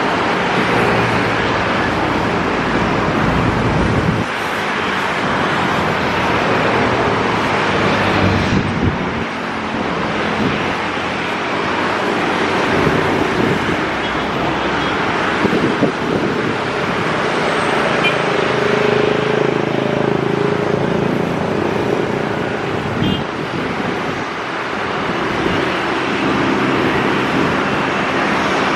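Steady roar of a twin-engine jet airliner on final approach, gear down, mixed with the noise of road traffic.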